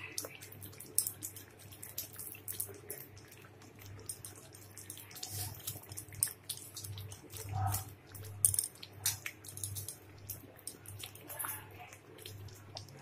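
Yogurt gravy sizzling and crackling in a kadai as pieces of fried rui fish are laid in, with a few knocks of the spatula against the pan.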